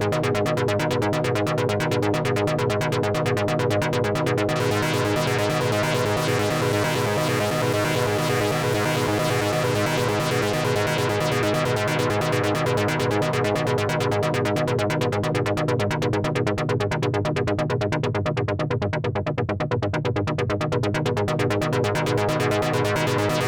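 Korg Monologue analog monosynth playing a fast repeating pulse pattern over sustained droning tones, run through the Dreadbox Raindrops delay pedal. A brighter hissy wash comes in about four and a half seconds in, the top end dims near the end, and the music cuts off abruptly.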